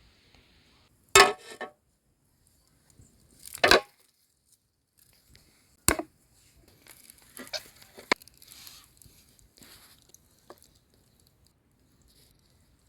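Food-preparation handling noises: three short, sharp clatters about two seconds apart, then a few seconds of crinkling and rustling.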